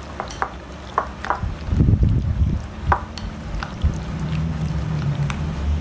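Sliced pork heart being stirred in its wet marinade in a ceramic bowl with chopsticks: moist squishing with scattered light clicks of the chopsticks on the bowl, and a low rumble about two seconds in.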